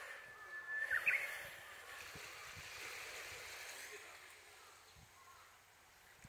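A single whistled bird call about a second in, held on one pitch and then flicking upward, over faint steady outdoor background noise.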